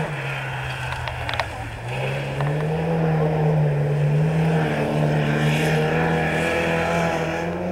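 VW 1302 Beetle's air-cooled flat-four engine racing up a hill-climb course at full throttle. Its pitch sags for the first two seconds, then climbs and holds high with small wavers.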